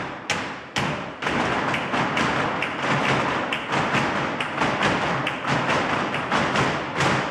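A group of flamenco dancers' heeled shoes striking a wooden floor in footwork, with sharp heel and toe stamps a few times a second over a continuous background.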